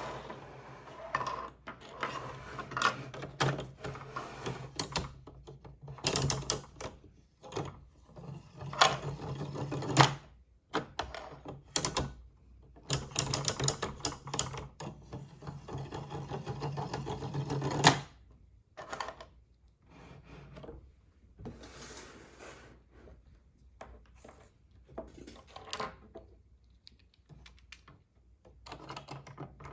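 Small plastic toy pieces and packaging being handled: a busy run of clicks, rattles and knocks that thins out and grows quieter after about 18 seconds.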